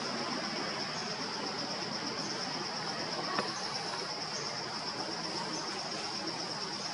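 Steady, high-pitched chorus of insects, unbroken throughout, with one short click about three and a half seconds in.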